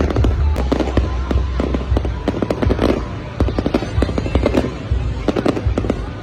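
Aerial fireworks going off in rapid succession: many sharp bangs and crackles over a continuous deep rumble.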